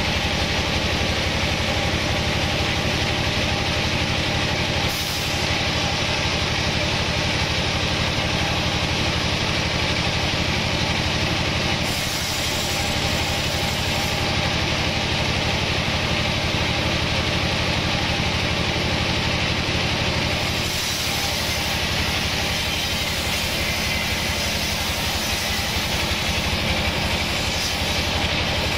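Large vertical band sawmill running: a steady, dense machine noise as a log on the carriage is fed into the blade and sawn.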